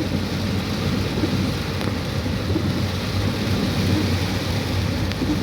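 A car driving through floodwater, heard from inside: the engine hums low and steady under a continuous rush of water and rain.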